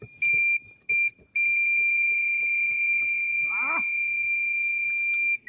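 Electronic carp bite alarm on the rod: two short beeps, then from about a second and a half in a continuous high tone for about four seconds as a fish takes line, a run, before it cuts off. Birds chirp faintly in the background.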